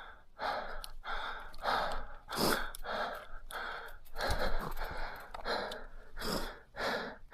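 A mountain biker's heavy, rapid breathing, one breath sound about every half second, as he is winded from the ride.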